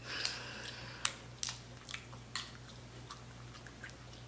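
Close-miked eating of butter-sauced snow crab: a wet squishing sound at the start, then several sharp clicks and cracks of mouth and crab shell, about a second in, again half a second later, and near two and a half seconds.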